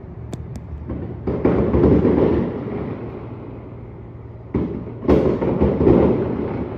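Aerial firework shells bursting: a deep boom just over a second in and two more in quick succession after about four and a half seconds, each trailing off in a long rumbling echo, with a couple of sharp small cracks near the start.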